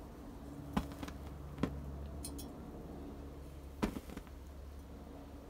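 Three sharp ceramic clinks over the first four seconds, over a low steady rumble.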